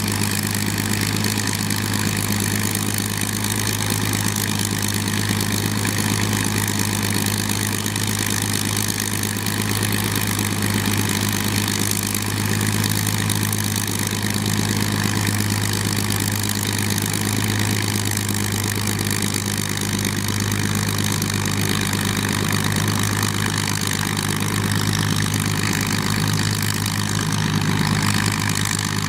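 de Havilland DH-98 Mosquito's Merlin V12 engines idling on the ground, a low, even drone that holds steady throughout.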